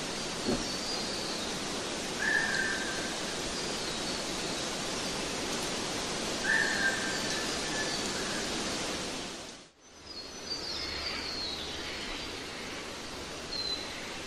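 Added nature-ambience track: a steady rushing hiss with birds calling over it. One bird gives a short whistled call twice, and other birds chirp higher up. The whole track dips out for a moment about ten seconds in, then resumes with quicker high chirping.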